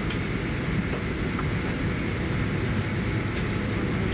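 Steady cabin noise inside a Boeing 787-10 airliner during pushback: an even low rumble with a faint, high, steady whine over it and a few light clicks.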